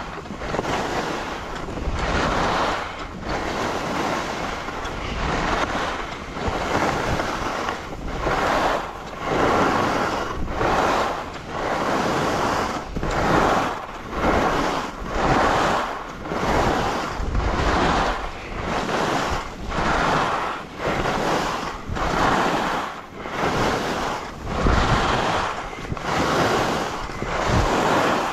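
Skis hissing and scraping over snow in a steady rhythm of turns, about one swish a second, with wind buffeting the microphone.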